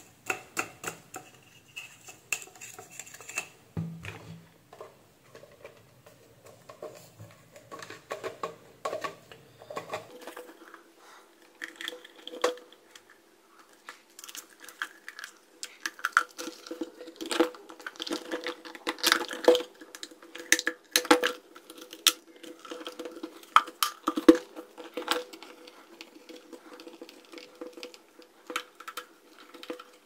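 Plastic hair dryer housing being handled and its handle cover fitted back on: irregular clicks, taps and knocks of plastic parts. A faint steady hum comes in about ten seconds in.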